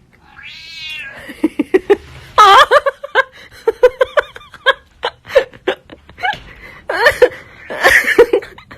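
Agitated cat caterwauling: one long wavering yowl near the start, then a rapid run of short cries broken by several loud yowls.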